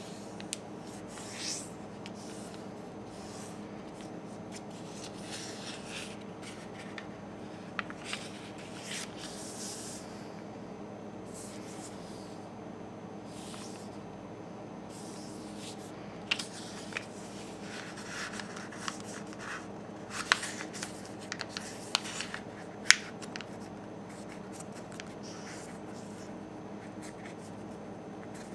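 A sheet of paper being folded and creased by hand on a wooden table: soft rustling and fingers rubbing along the folds, with a run of short sharp clicks and crackles a little past the middle. A steady low hum lies underneath.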